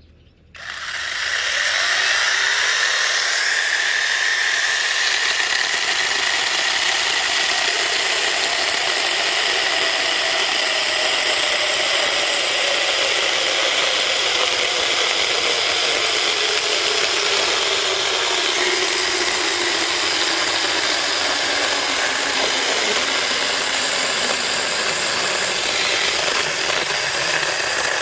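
Mini cordless battery chainsaw starting up and cutting through wood, its motor and chain running loud and steady with a whine that sinks slowly in pitch as it cuts.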